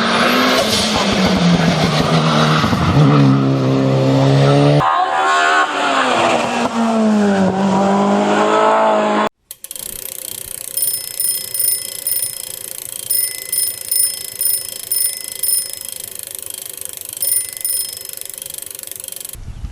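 Vehicle engines revving, their pitch rising and falling, in two short clips. After about nine seconds they cut to a quieter steady hum with a repeating high electronic beeping in short groups.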